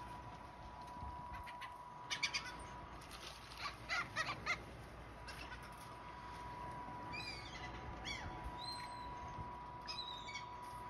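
Gulls calling: a quick run of three short notes about two seconds in and four more about a second and a half later, then higher calls that slide up and down in pitch.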